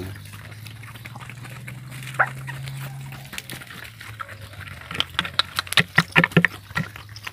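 Chickens clucking: a short call about two seconds in, then a quick run of loud short clucks about five seconds in, over a low steady hum.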